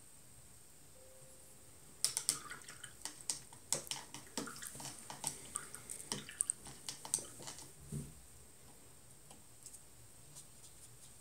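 A paintbrush being rinsed in a glass jar of water: a quick run of clinks, taps and small splashes as the brush knocks against the jar, starting about two seconds in and stopping near eight seconds. A few faint ticks follow.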